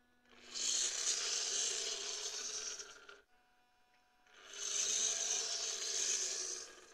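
Hobby servos of a 3D-printed pan-tilt antenna tracker whirring and grinding through their gears as they swing a roughly 500 g dish antenna between its end positions. There are two moves, the first about three seconds long and the second about two and a half, with a quiet pause of a little over a second between them.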